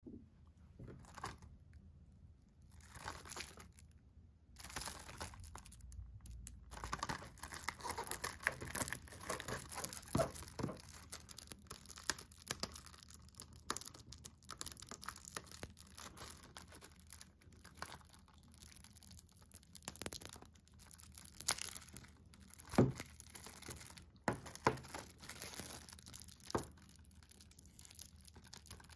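Plastic shrink-wrap on a Blu-ray case being picked at and peeled, crinkling with irregular sharp crackles and short tearing sounds. It is sparse at first and becomes busier a few seconds in.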